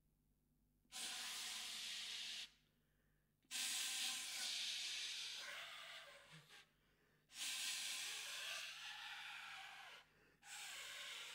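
Soprano saxophone played with breath alone: airy, unpitched air tones blown through the horn in four long gusts with short gaps between, the second fading slowly.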